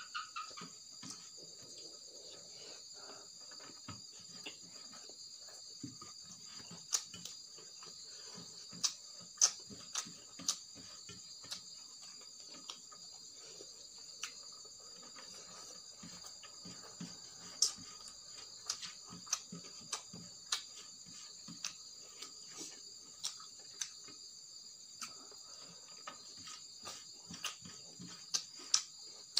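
Eating by hand from a steel plate: irregular sharp clicks and smacks of chewing and of fingers working rice against the plate. Behind them runs a steady high chirring of crickets.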